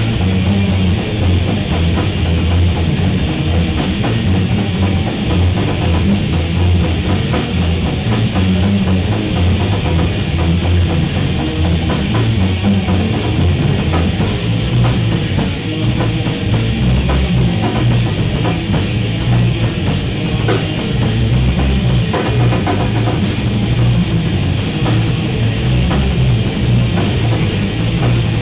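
A rock band playing loud and without a break: electric guitars over a drum kit, heard close up.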